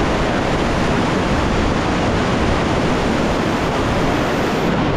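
Rapids on a river, the whitewater rushing in a steady loud roar with no breaks.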